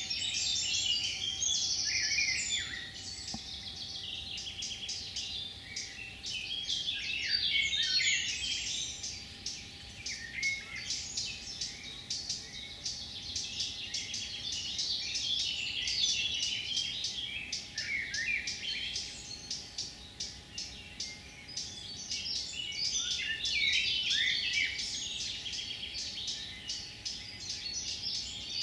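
Several songbirds singing and calling together, a dense, overlapping mix of chirps, trills and rapidly repeated notes.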